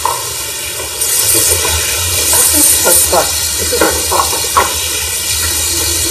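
Water running from a kitchen sink faucet onto a person bent over the sink and washing under it. The steady hiss grows louder about a second in.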